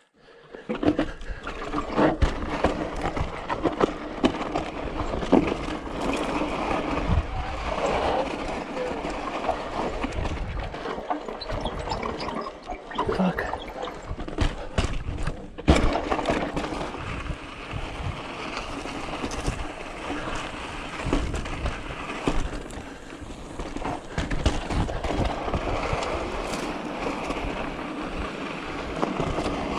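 Yeti SB6 mountain bike ridden down a rocky trail: a steady rush of wind on the microphone with tyres rolling over rock and dirt, and frequent knocks and rattles from the bike over the bumps, one hard clunk about halfway through.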